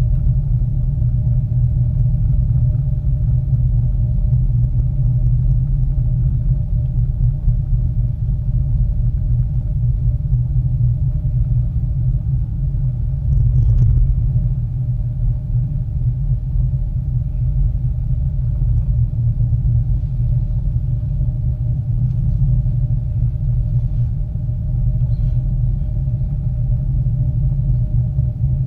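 Steady low rumble of a Miyajima Ropeway cabin running along its cable, with a faint steady hum above it.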